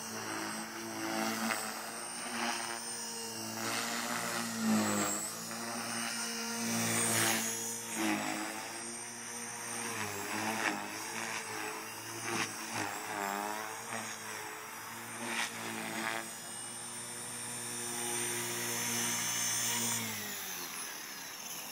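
Align T-Rex 450 Pro electric RC helicopter flying, its motor and main rotor whining and buzzing, rising and falling in pitch as it manoeuvres. Near the end it sets down and the rotor sound drops away, winding down in pitch.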